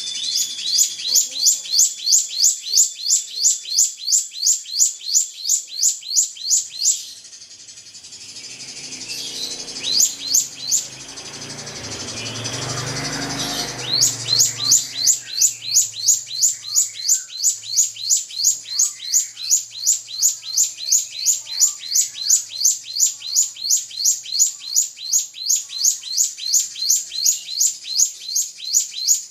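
Drongo (srigunting) calling in a long, fast series of short, sharp, downward-sweeping high notes, about three a second. The series breaks off for several seconds midway, with only a few notes and a brief low rustling noise, then starts again.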